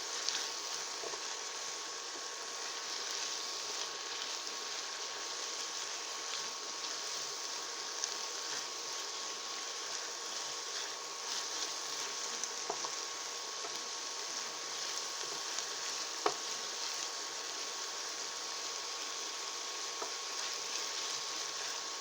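Swiss chard stems and onion sizzling steadily in olive oil in a small frying pan, with a few faint clicks and one sharper click about 16 seconds in.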